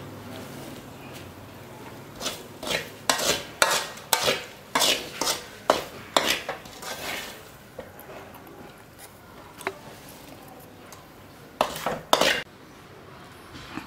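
A metal spoon scraping and clinking against a dish while scooping food: a run of sharp strokes, about two a second, lasting some five seconds, then a few more near the end.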